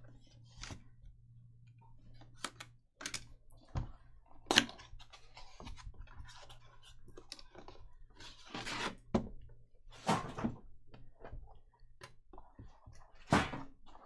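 Trading cards and their packaging being handled on a table: scattered clicks, taps and knocks with some rustling, the loudest knock about four and a half seconds in and another near the end.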